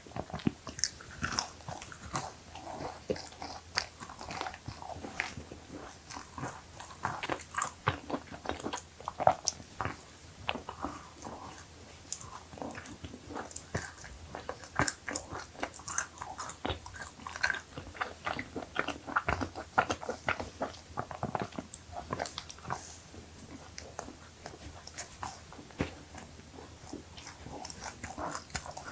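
Close-miked biting and chewing of crisp, chewy cookies: many irregular crunchy crackles and soft mouth sounds.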